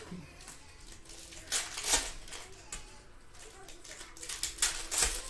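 Plastic-foil trading-card pack wrapper being torn open and crinkled by hand, in two short bursts, about a second and a half in and again near the end.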